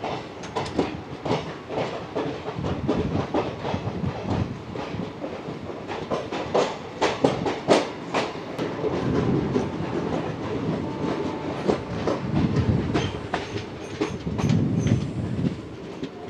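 Passenger train coaches rolling slowly out of a station, heard from an open coach door: steady wheel rumble with irregular clickety-clack as the wheels cross rail joints and points.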